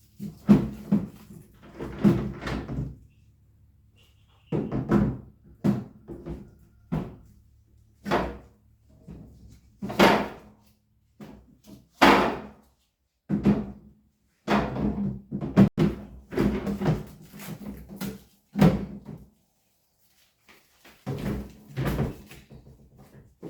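Irregular knocks, thuds and clatter from handling the packaging of a new fridge and furniture, about a dozen bumps with short pauses between.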